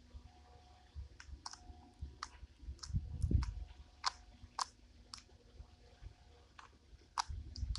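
Clear slime with tiny foam beads being squeezed and pressed by hand, giving about a dozen irregular sharp clicks and pops as trapped air bursts, with a heavier, lower press a little after three seconds in.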